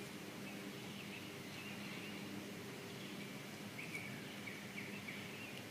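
Honeybees buzzing around the open hive, a steady hum, with a small bird giving several short chirps.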